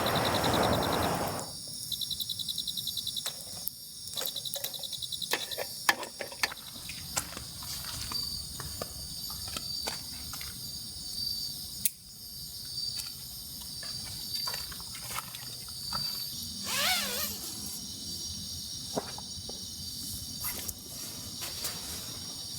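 Insects chirping: fast pulsed high trills in short bouts early on, then a steady series of short high calls about once a second, with scattered sharp clicks. It opens with about a second and a half of loud hissing rush.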